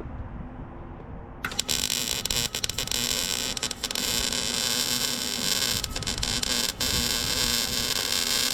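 Small 110 V Eastwood MIG 135 welder striking an arc about a second and a half in and then welding steadily: a loud, even hiss with brief breaks. Wind buffets the microphone before the arc starts.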